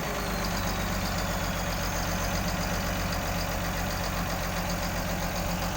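Hitachi excavator's diesel engine idling steadily, with an even low throb.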